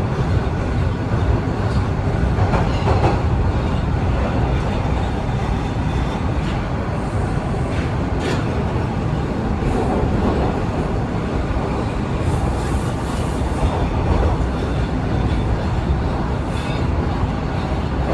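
TTC Line 1 subway train (a Toronto Rocket) running between stations in the tunnel: a steady rumble of wheels on rail from inside the car, with occasional faint clicks over the track.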